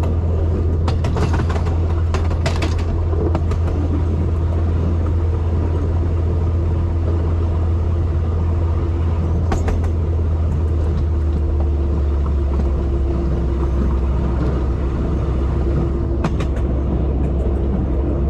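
Steady low vehicle rumble of engine and running noise, with a few faint clicks over it.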